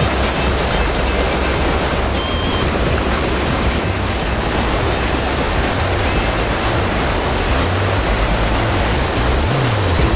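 Rushing water of a mountain stream tumbling over small waterfalls, a steady loud hiss, with the low notes of background music underneath.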